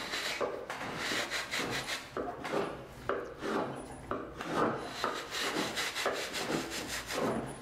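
A hand tool scraping across wood in repeated strokes, about two a second.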